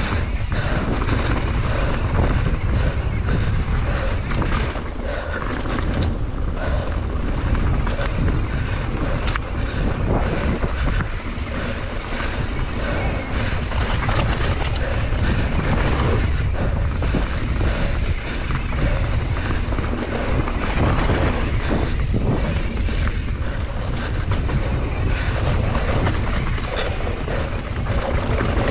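Mountain bike descending a dirt singletrack: wind buffeting the camera microphone over tyres rolling on dirt, with frequent knocks and rattles from the bike over bumps.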